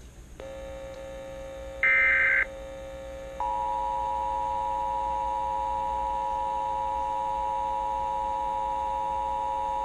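Emergency Alert System activation signals. A steady electrical hum comes in, then about two seconds in there is a brief, loud, shrill burst of digital data tones, typical of an EAS header. From about three and a half seconds in the loud, steady two-tone EAS attention signal sounds (853 and 960 Hz together).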